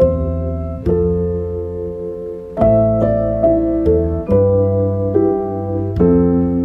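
Background piano music: slow, sustained chords and notes struck every second or so, each left to ring and fade.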